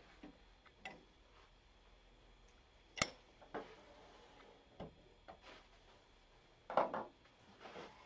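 Scattered metal clicks and clunks from handling the fittings of a stopped wood lathe: the chuck key and tool rest, then the tailstock being brought up to the blank. A sharp click about three seconds in is the loudest, and a short run of heavier clunks comes near the end.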